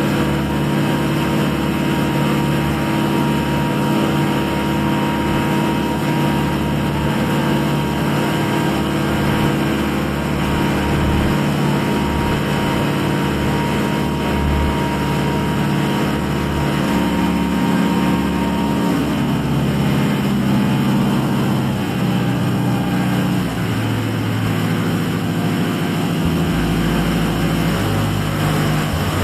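A ferry's engine running steadily, its speed shifting several times in the second half.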